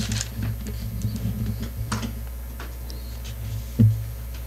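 Bible pages being turned at a lectern: soft paper rustles and small clicks, with a louder knock against the lectern just before the end, over a steady low electrical hum.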